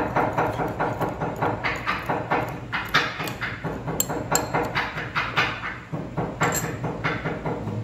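A metal spoon clinking and scraping against a small ceramic bowl as it stirs a dry salt-and-pepper mix, with knocks of a chef's knife on a wooden cutting board. The clinks and knocks come irregularly, a few a second.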